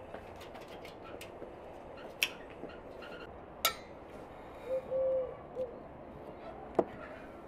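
A few sharp clicks and a clink of lids on ceramic spice bowls, the loudest near the end. Partway through, a bird calls three hooting coos, short, long, short.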